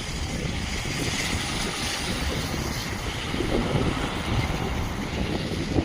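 Steady rushing noise with irregular low rumbling gusts, like wind buffeting a microphone while moving.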